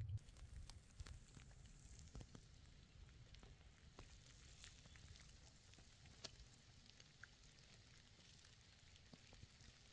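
Faint, irregular crackling: scattered sharp ticks of varying strength over a soft hiss.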